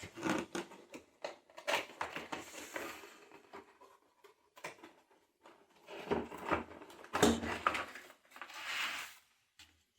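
A new corner clamp being unpacked from its packaging and handled: scattered clicks, knocks and rustling, busiest about a second and a half in and again from about six seconds.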